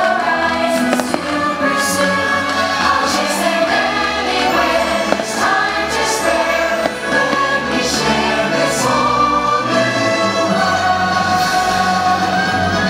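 Fireworks show music with a choir singing, steady and loud, with sharp pops of fireworks bursting now and then.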